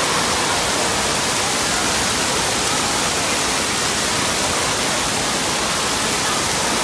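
Steady rushing hiss of water from splash-pad ground jets spraying up and splashing back onto a wet floor.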